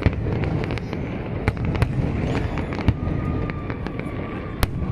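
Aerial fireworks display: several sharp bangs of bursting shells, a second or so apart, over a continuous low rumble of further explosions.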